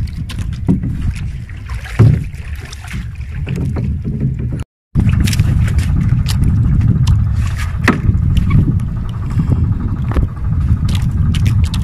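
Wind buffeting the microphone over water slapping against a small outrigger fishing boat, with scattered knocks and clicks. The sound cuts out completely for a moment a little before halfway.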